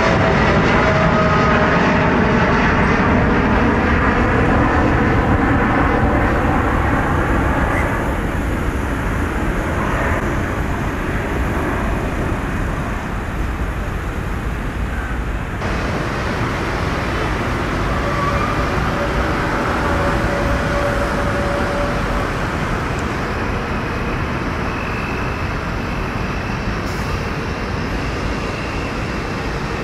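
Jet engines of a Boeing 787-8 Dreamliner climbing away after takeoff: a steady rumble with engine tones that slowly fade. About halfway it changes abruptly to a steadier rushing noise with a faint whine, an Airbus A320neo rolling along a wet runway.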